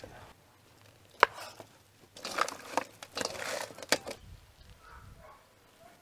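Hands mixing spice-coated chunks of boiled cow udder in a stainless steel bowl. There is a sharp knock about a second in, then about two seconds of wet squishing and clacking as the pieces are tossed, ending with another sharp knock.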